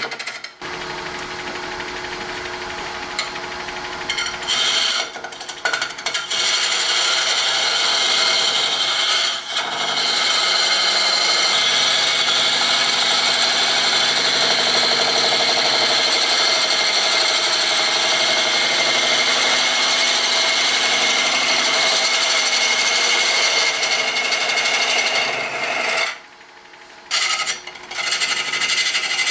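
Turning tool cutting a spinning hybrid orb of burl wood and cast Alumilite resin on a wood lathe: a steady scraping hiss of the cut over the lathe's running. The cut breaks off briefly several times as the tool lifts away, longest for about a second and a half near the end.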